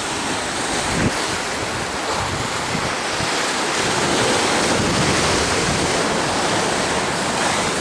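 Ocean surf washing steadily, with wind on the microphone and a single brief knock about a second in.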